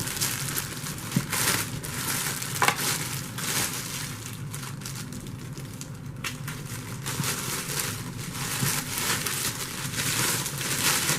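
Packaging crinkling and rustling as a vacuum's dirt bin is handled and unpacked, irregular throughout, with a few light knocks.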